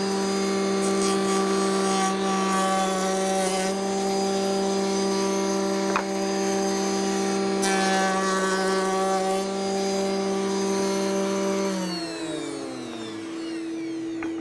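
Table-mounted router with a reverse glue joint bit running at full speed, cutting the edge profile on two boards fed past the bit one after the other; each pass adds a harsh cutting noise over the motor's steady whine. About twelve seconds in, the router is switched off and winds down, its pitch falling.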